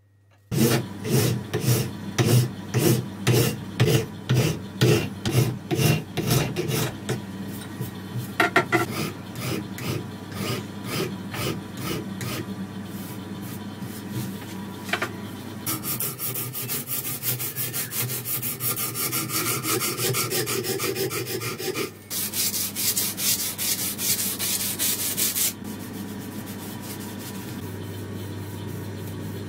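Steel marking-knife blade rubbed back and forth on abrasive paper: slow, even strokes about two a second at first, then faster, scratchier strokes. The strokes stop about four seconds before the end, leaving a low hum.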